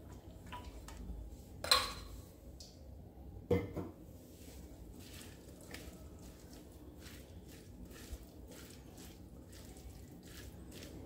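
Silicone spatula stirring a moist spiced chopped-vegetable mix in a glass bowl: faint soft scraping and squishing, with two sharper knocks about two and three and a half seconds in.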